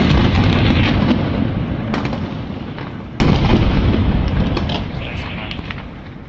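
A strike of several explosions going off in close succession, with sharp crackling reports over a heavy low rumble. Another loud blast hits about three seconds in, then the rumble fades away.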